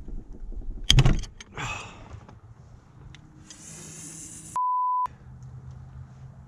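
A loud, sharp crack about a second in as the cam adjuster bolt is torqued down, the moment the holding tool gives way. A few seconds later comes a half-second censor bleep, a single steady tone.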